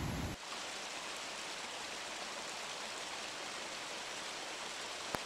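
Shallow rocky mountain stream running over stones: a steady rushing hiss of water, with one sharp click near the end.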